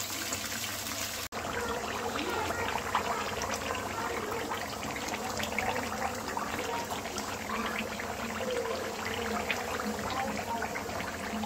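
Chicken karahi in oily tomato gravy sizzling and bubbling in a pan, a dense steady crackle, with a brief dropout about a second in.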